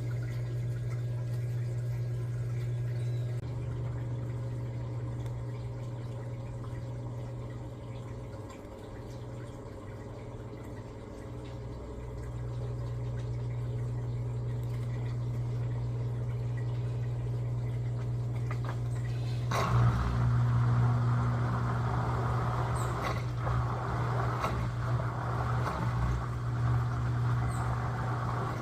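Electrolux LTA15 top-loading washing machine running through its wash cycle with water in the drum and a steady low hum. About two-thirds of the way in, a louder sloshing, churning noise starts suddenly and continues, with a few clicks.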